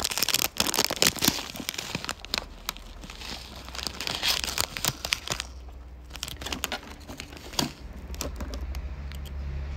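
Crinkling and rustling of something being handled, with many sharp little clicks. It is busy for about the first five seconds, then thins to scattered clicks and taps.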